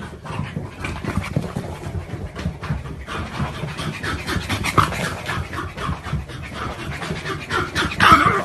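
Dog panting in fast, short breaths, growing stronger about three seconds in, with a brief louder sound near the end.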